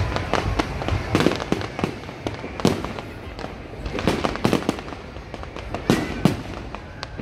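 Fireworks display going off: a rapid, irregular run of sharp bangs from bursting aerial shells, with the loudest cracks clustered about a second, two and a half, four and six seconds in.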